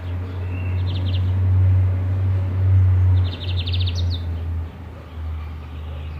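Small birds chirping, with two short runs of rapid high trills, about a second in and again around three to four seconds in, over a steady low rumble.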